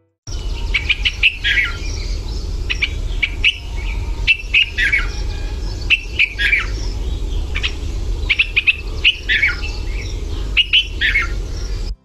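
Recorded red-vented bulbul calling: short, bubbly chirping phrases repeated every second or two over a low rumble of background noise. It starts suddenly just after the beginning and cuts off at the end.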